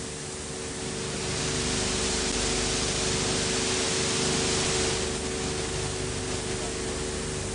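Steady hiss with a low electrical hum underneath, the hiss growing louder about a second in and easing back near five seconds: background noise of an old film recording, with no event sound.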